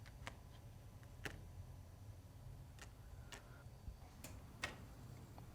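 Near silence over a low room hum, broken by a handful of faint, sharp clicks and taps at irregular intervals.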